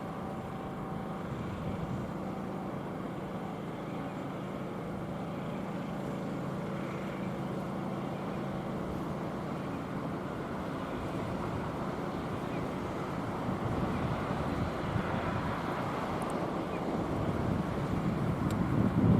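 Steady mechanical hum of a train with steady low tones, growing louder near the end as wind buffets the microphone.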